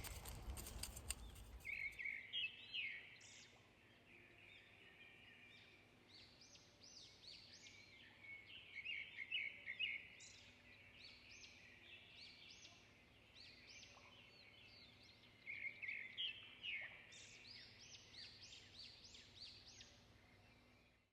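A songbird singing phrases of quick chirping notes in three bursts over faint outdoor background, with a brief bout of clattering and scraping in the first couple of seconds.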